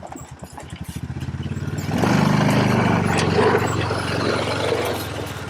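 Vehicle engine running with an even low pulse. It grows louder over the first two seconds, works hard for a few seconds, then eases off slightly near the end.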